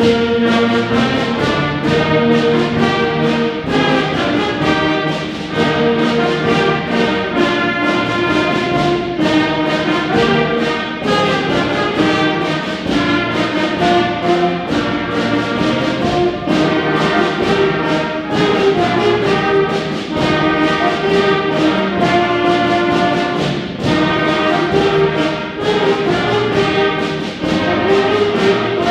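School concert band playing a march: brass carrying the melody over a steady percussion beat.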